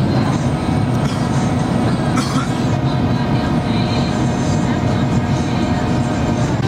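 Airliner cabin noise on approach: a steady roar of engines and airflow heard from inside the passenger cabin, heaviest in the low end, with a few faint steady tones above it.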